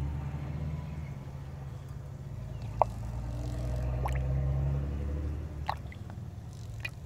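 Honda Element's 2.4-litre four-cylinder engine idling with a steady low hum, while coolant in a funnel on the open radiator filler neck gives a couple of sharp drips or plops, one about three seconds in and another near the end.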